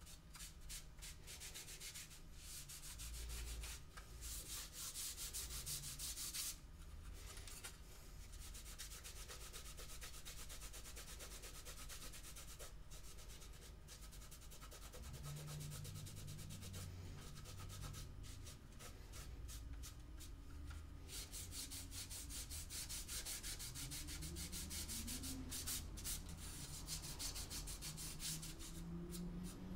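Wet towel rubbing over laser-cut wood parts, wiping off glue squeeze-out and laser soot, in quick strokes that come in spells with short pauses.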